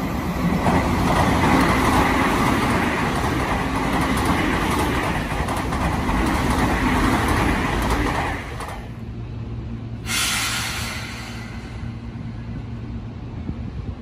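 Electric commuter train of the Tokyu red-striped stainless-steel type passing through the station at speed on the through track, its wheels and running gear loud until the noise drops away about eight and a half seconds in as the last car clears. A short hiss follows about ten seconds in, then a low steady hum as a yellow Seibu 2000-series train pulls in to the platform.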